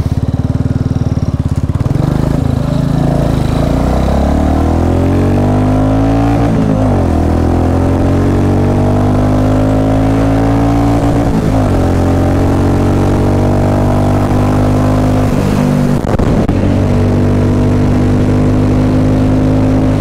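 Royal Enfield Classic 350 Reborn's single-cylinder engine through a short Punjab thin-mouth exhaust with a cat can, pulling away. The pitch climbs, drops back at two upshifts, then holds steady at cruising speed. The note is a little bassy and soft with the cat can fitted, and not very loud.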